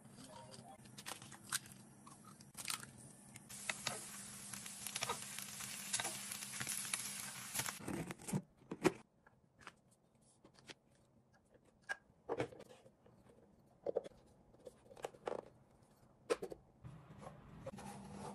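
A crackling hiss for about four seconds, then scattered sharp plastic clicks and knocks as a broom-and-dustpan set's handle sections and broom head are handled and fitted together.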